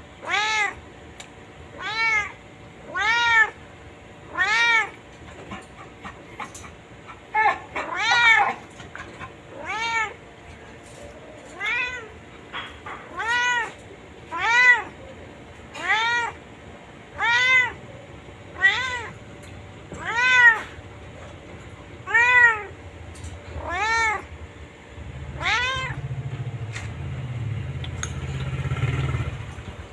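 Domestic cat meowing over and over, about seventeen meows a second or so apart, each rising then falling in pitch. A low rumbling noise comes in under the last few meows.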